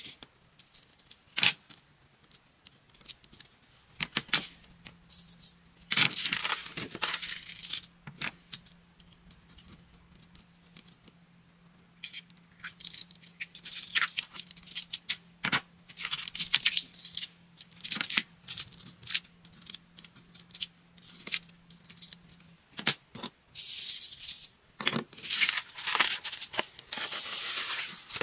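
Coloured sand being handled on an adhesive sand-art sheet: scattered small clicks and taps, with hissing, rattling runs of sand poured onto and shaken off the tilted paper, twice, the longer run near the end.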